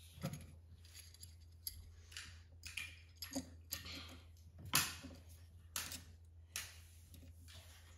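Small stainless steel bracket and screw handled and fastened by hand with a screwdriver against a plywood panel: a run of irregular metallic clicks and taps, the sharpest about five seconds in.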